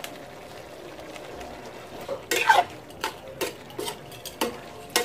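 A cooking utensil stirring chicken pieces in a frying pan to mix in the newly added oyster sauce, scraping and knocking against the pan about twice a second from a little past two seconds in. Under it is a low, steady sizzle from the simmering pan.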